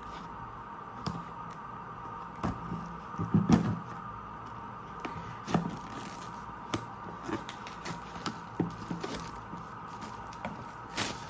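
Box and packaging being handled while unpacking: scattered clicks, knocks and light rustles, the loudest cluster about three and a half seconds in, over a faint steady hum.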